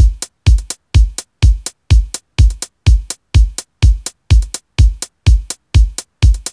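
Electronic dance music with a steady drum-machine beat, a deep kick drum about twice a second with sharp hi-hat strikes between.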